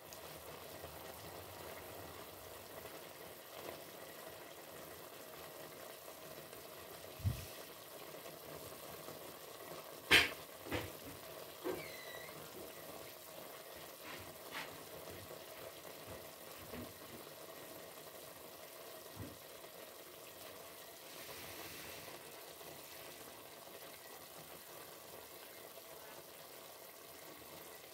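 A pot of pork adobo with broccoli and green beans simmering faintly over a steady hum, with a few sharp clicks and knocks, the loudest about ten seconds in.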